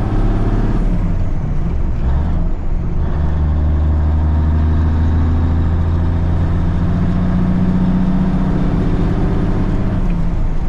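1983 Kenworth K100 cabover's diesel engine running under way, heard from inside the cab. The engine note changes about two seconds in and again near the end.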